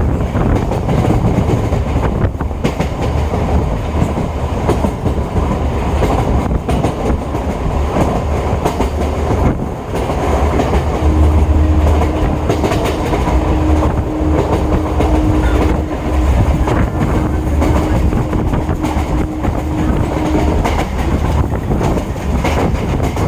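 Electric multiple unit (EMU) local train running, heard from inside the coach: a loud steady rumble with wheels clacking over rail joints. A steady low tone joins in about eleven seconds in and stops about ten seconds later.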